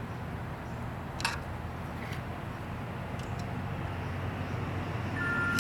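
A few light metallic clicks of a screwdriver and feeler gauge on the breaker points of a Vespa 400's ignition as the point gap is set, with one clearer click about a second in, over a steady background hum.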